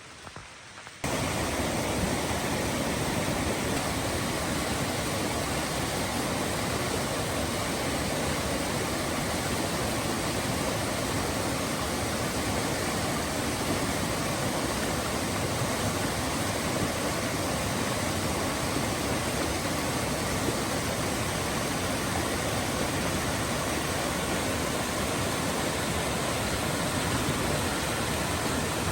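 Steady rush of a rocky mountain stream, cutting in abruptly about a second in and holding even throughout.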